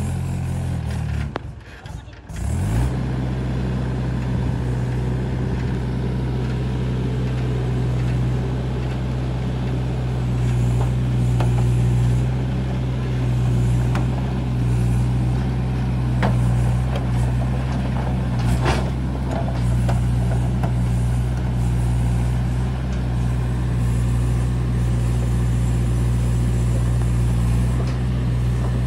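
Heavy diesel engine running steadily with a deep, even drone, after a short break about two seconds in, with a few faint knocks over it.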